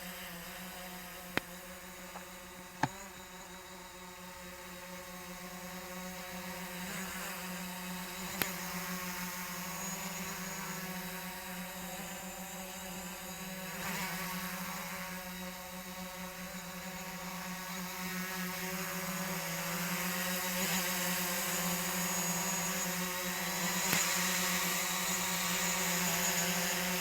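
Zino Pro quadcopter's propellers buzzing steadily as it hovers, growing gradually louder as it comes in closer. A few sharp clicks in the first several seconds.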